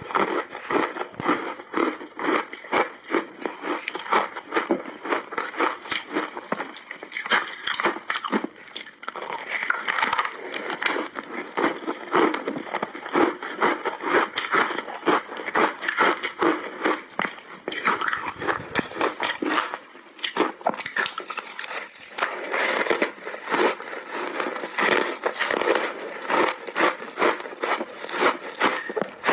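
Crunching and chewing of a frozen layered ice block with mixed berries, coated in matcha and milk powder: a continuous run of crisp cracks and crackles as the ice breaks between the teeth.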